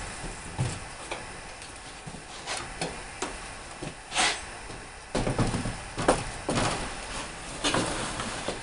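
Aluminum evaporator coil of a Goodman ARUF air handler knocking and scraping against the sheet-metal cabinet as it is lifted out, turned over and slid back in. The sound is a string of irregular clunks and short scrapes.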